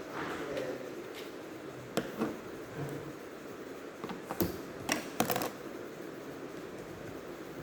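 Scattered small clicks and taps of hands working on a laptop's case and parts, with sharper clicks about two seconds in and again around four and a half to five and a half seconds.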